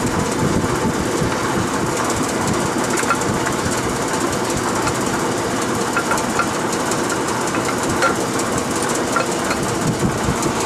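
Light clinks and scrapes of a steel camshaft's lobes and journals against the cam bearings as it is slid out of an LS V8 engine block. Under them runs a steady rumbling noise.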